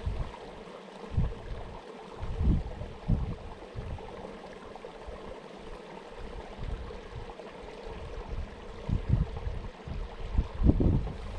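Wind gusting across the microphone: a steady rushing hiss with irregular low buffeting rumbles, strongest a few times near the start and again near the end.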